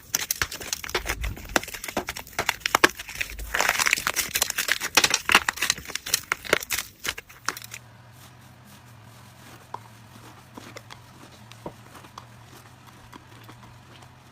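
Slime being squeezed and worked by hand, giving a dense run of crackling and popping for about the first eight seconds. Then it drops off abruptly to a faint low hum with only occasional soft pops.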